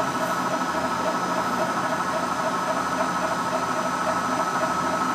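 Hitachi Seiki HT-25D CNC lathe spindle running at a steady speed in high range, the chuck spinning with a steady whine from the spindle drive and a faint regular pulse underneath.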